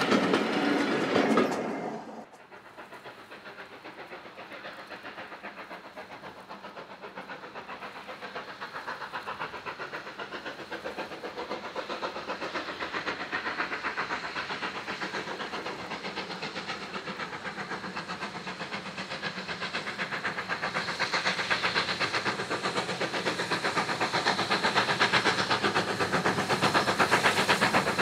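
Passenger coaches rattling past over the rail joints, cut off about two seconds in. Then GWR Modified Hall 4-6-0 steam locomotive 6960 approaching with its train, a steady rhythm of exhaust beats growing louder as it nears.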